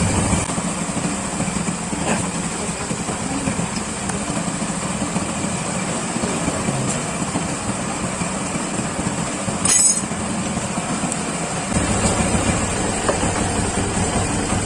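Kawasaki Barako 175 motorcycle engine idling steadily after a tune-up and valve-clearance adjustment, with a short metallic clink about ten seconds in.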